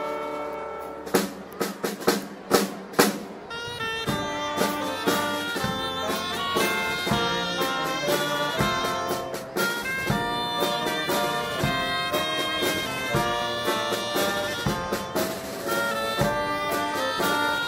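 Brass band music with drums: a few loud drum strokes in the first three seconds, then brass and drums play a quick tune.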